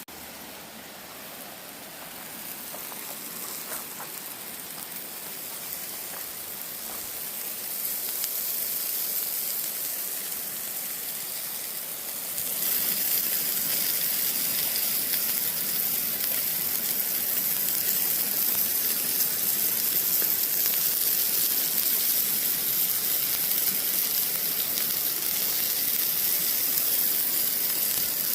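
Rainbow trout sizzling on a grill as butter melts and runs down into the fish: a steady hiss that builds slowly, then gets louder about twelve seconds in.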